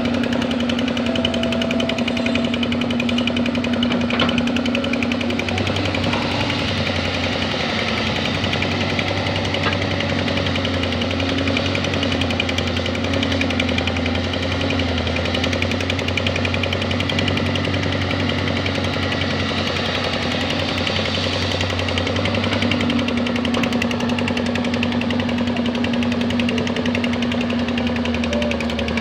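Doosan DX220 excavator's diesel engine running steadily with a rapid, dense pulse. Through the middle stretch the sound gets deeper and heavier, as the engine takes load.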